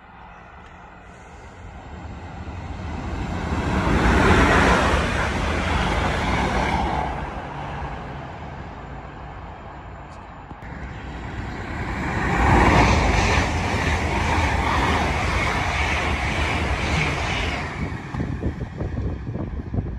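Trains passing through at speed, the rush of wheels on rail and air rising and falling twice: one pass peaks about four seconds in and fades, and a second builds from about ten seconds in and stays loud until near the end.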